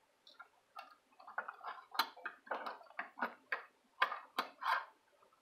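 A knife blade and metal handcuffs clicking and scraping together as the cuffs are worked at, in an irregular run of small sharp clicks, several a second.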